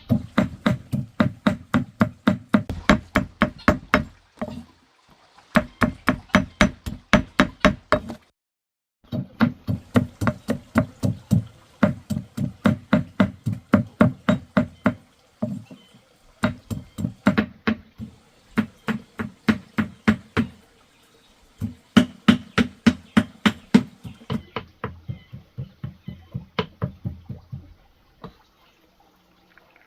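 Kitchen knife chopping on a wooden cutting board: quick, even strokes at about three or four a second, in runs of several seconds broken by short pauses, stopping near the end.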